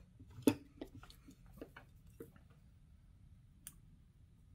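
Handling noise as wires and a soldering iron are positioned to solder onto a push-button pin: a run of soft clicks and taps over the first two seconds, loudest about half a second in, then a single sharp click near the end.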